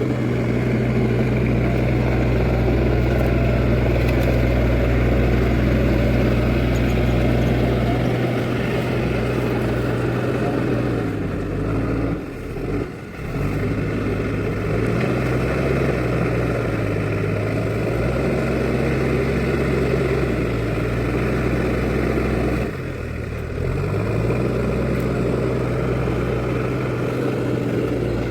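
Diesel engine of an Escorts backhoe loader running steadily under work. Its pitch and loudness sag briefly about twelve seconds in and again around twenty-three seconds, then pick back up.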